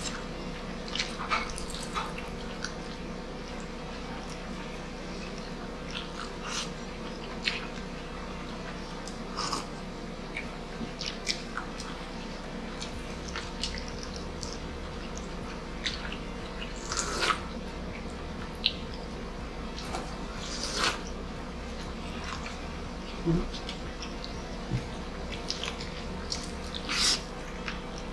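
Close-up eating sounds: chewing and wet lip-smacking, with scattered short clicks and a few louder smacks near the middle and end, over a steady low hum.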